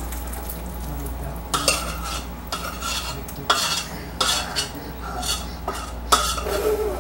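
A utensil scraping and clinking against the inside of a stainless steel saucepan in short, irregular strokes, about two a second, as the last of the hot candy syrup is scraped out onto a baking sheet. A steady low hum runs underneath.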